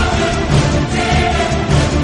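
Theme-style soundtrack music with a steady pulsing beat in the bass.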